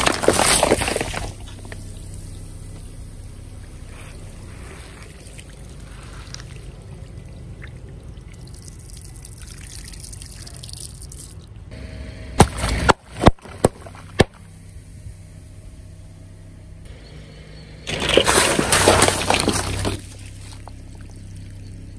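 Water-filled balloons bursting under a car tyre with a loud splash, then water pouring and trickling from a burst balloon onto asphalt. A few sharp cracks come about halfway through, and another loud burst of splashing comes near the end.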